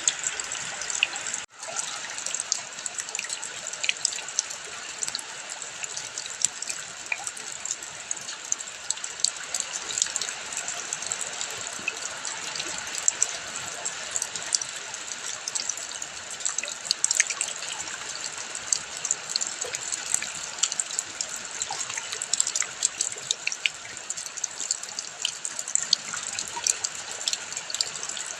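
Rain and running water pouring steadily, with many sharp drips and splashes on top. The sound cuts out briefly about a second and a half in.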